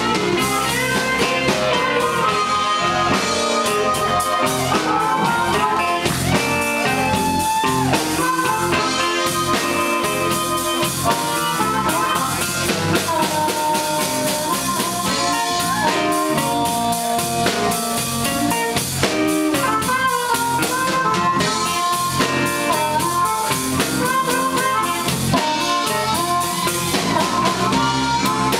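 Live blues band playing an instrumental stretch: a harmonica, cupped against a handheld microphone, plays long held and bent notes over drums, bass and electric guitar.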